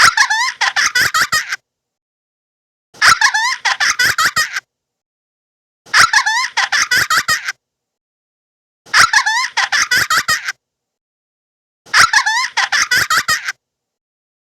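A short high-pitched giggling sound effect, a quick run of laugh pulses lasting about a second and a half, played five times over with silence between each repeat.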